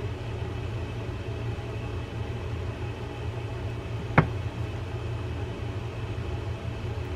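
Steady low hum with a small screwdriver working at the screws on the side plate of a vintage Pflueger Oceanic fishing reel; one sharp click about four seconds in, as the tool meets the plate.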